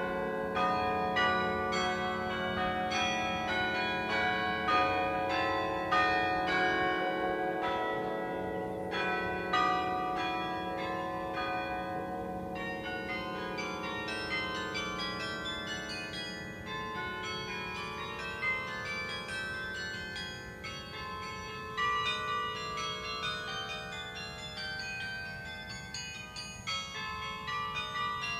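Carillon bells played as music, each struck note ringing on and overlapping the next. Slower, louder strokes come first, then about halfway through a quicker run of higher notes.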